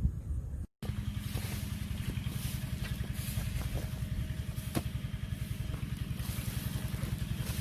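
An engine running steadily with a fast, even pulse. The sound cuts out for a moment just under a second in.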